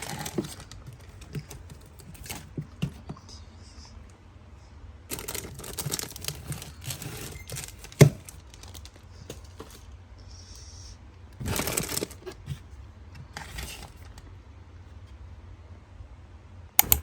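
Handling noises: bursts of rustling and crinkling, as of plastic or packaging being handled, with scattered clicks and knocks, one sharp click standing out about halfway through and two quick ones near the end, over a steady low hum.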